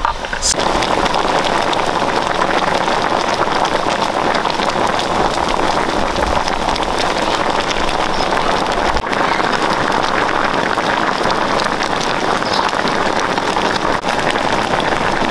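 Large pot of seafood boil at a rolling boil over a propane burner: a steady bubbling and hissing with fine crackles throughout.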